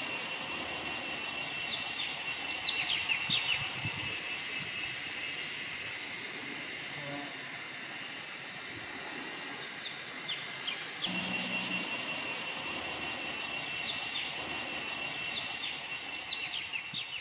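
Forest ambience: a steady high-pitched insect drone, with short falling bird chirps in small clusters, twice near the start and near the end.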